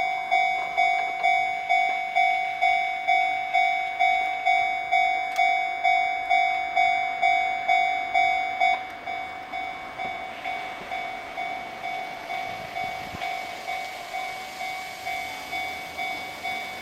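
Japanese railroad crossing warning bell ringing its rapid "kan-kan", about two and a half strikes a second. It drops noticeably in loudness about nine seconds in, and the rushing noise of a passing train rises under it in the second half.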